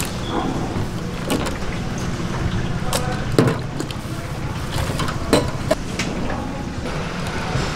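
Steady low hum of a busy street-food stall, broken by several sharp clinks and knocks of skewers and utensils against stainless-steel fish cake broth trays. The loudest knocks come a little past three seconds in and again a little past five seconds in.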